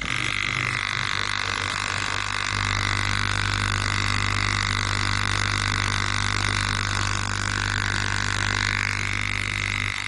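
Opened-up refrigerator hermetic compressor running on mains power: a steady electric motor hum with a high, even whine above it. The low hum grows stronger about two and a half seconds in.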